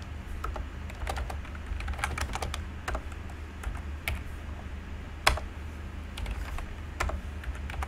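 Typing on a computer keyboard: irregular keystrokes, with one louder stroke about five seconds in, over a steady low hum.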